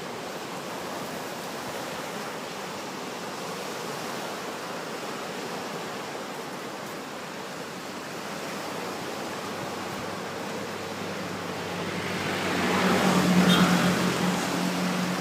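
Waves breaking and washing on a pebble beach, a steady surf rush. About twelve seconds in it grows louder, with a low steady hum joining it.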